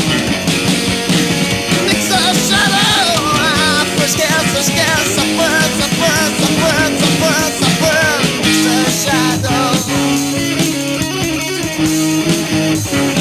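Rock band music: short, bending lead notes, likely guitar, over held chords, settling into long sustained notes in the second half.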